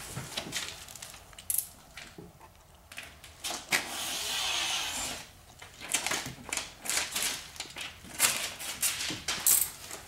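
Wet window tint film being handled and pressed onto a car door's glass by hand: scattered clicks, rustles and scrapes, with a steady hiss lasting about a second and a half around four seconds in.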